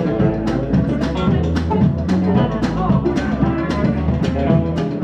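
Live blues band playing: electric guitars and electric bass over a drum kit keeping a steady beat of sharp, regular hits.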